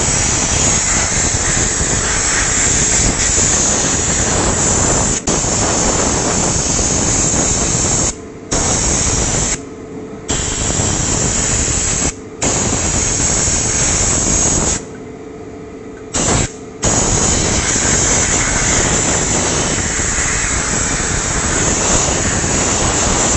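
Compressed-air blow gun blasting air through a Yamaha FZ V3's stock pleated paper air filter to blow the dust out. It makes a loud steady hiss that stops briefly about five times, longest for about a second and a half past the middle.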